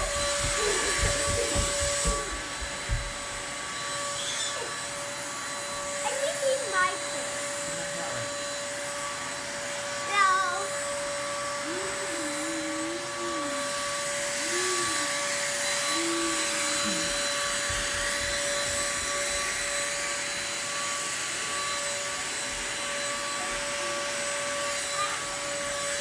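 Corded Dirt Devil handheld vacuum running steadily, its motor giving a constant, even whine.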